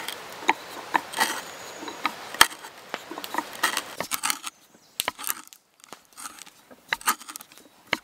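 Hand auger boring into a log: irregular crackling and creaking of wood as the bit cuts and chips break away, dense for the first half, then sparser clicks after about four and a half seconds.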